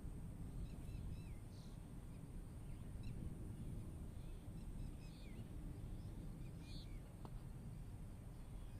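Wind blowing as a steady low rushing, with short bird chirps scattered over it every second or so.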